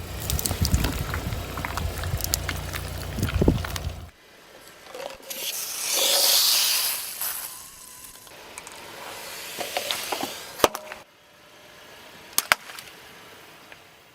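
A car's tyre rolls over and crushes objects, a low rumble with crackling. About six seconds in comes a loud hiss, like carbonated soda spraying from a burst bottle or can, followed later by a few sharp cracks.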